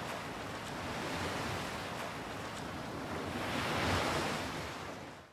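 A steady rushing noise that swells about four seconds in, then fades out.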